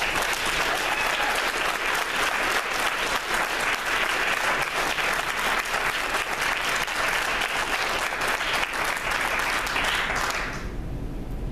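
Audience applauding, many hands clapping steadily, then dying away near the end.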